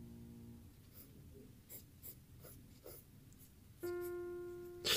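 Faint scratching of a mechanical pencil on sketchbook paper in short strokes. Background music comes in with a held chord near the end.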